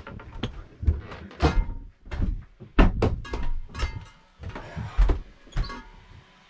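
A run of sharp knocks and dull clunks as a boat's porthole is pushed shut and its latches are turned down by hand.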